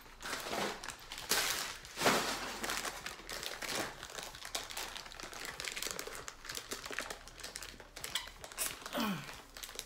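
Packaging being crumpled and crinkled: brown packing paper scrunched up by hand, then a white plastic mailer bag handled and pulled at while being opened. The crackling is irregular, loudest about two seconds in.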